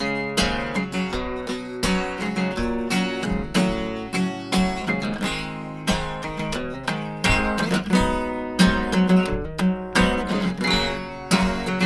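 Fender acoustic guitar strummed in a steady rhythm, an instrumental passage of chords with no singing.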